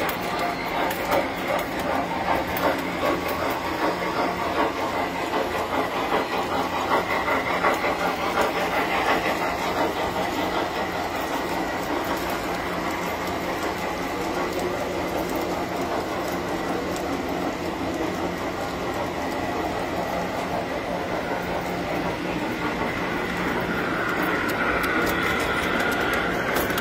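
Tinplate model electric trains running on the layout's track: a steady mechanical whir with a constant low hum and wheel clatter. It grows louder near the end as a locomotive runs close by.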